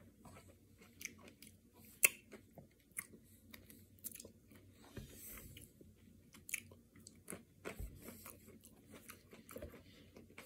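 Faint, close chewing and crunching of a mouthful of chocolate-coated ice cream bar, its crunchy chocolate coating with KitKat pieces cracking in scattered crisp snaps, the sharpest about two seconds in.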